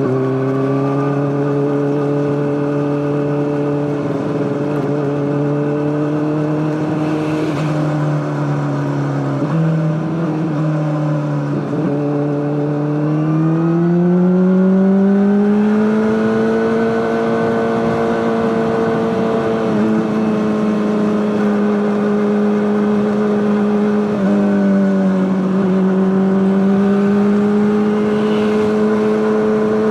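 Honda CBR600RR's inline-four engine running through an Akrapovic exhaust at steady revs. The pitch holds low, climbs smoothly to a higher steady note about 13 seconds in, dips briefly around 25 seconds, then picks back up.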